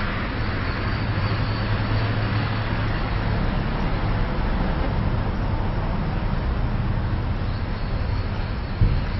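Many flies buzzing, a steady low hum with a short bump near the end.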